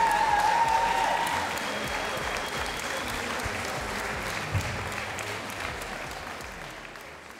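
Audience applauding, the applause fading out gradually over the last few seconds.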